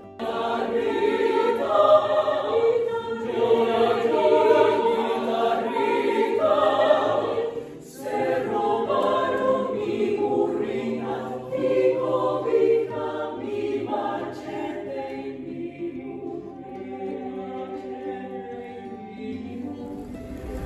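Small mixed vocal ensemble of men and women singing a cappella in harmony. The singing breaks off briefly about eight seconds in, then goes on and grows gradually quieter toward the end.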